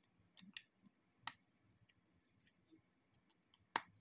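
iPhone 7 Plus display being pressed down into its frame, giving a few sharp plastic-and-metal clicks as it snaps into place. There is a quick double click about half a second in, another about a second later, and the loudest near the end.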